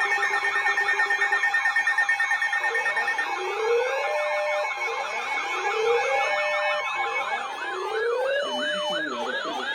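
Several electronic sirens sounding at once: fast yelping warbles layered with slow wails that rise about every two and a half seconds, over steady alert tones.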